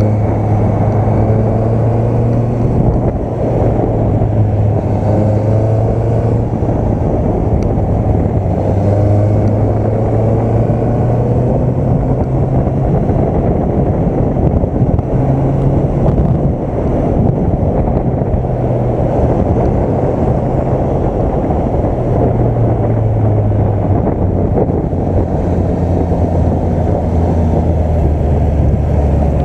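Honda CB650F's inline-four engine running on the road, its note rising and falling with the throttle through the bends, over steady wind rush on the microphone.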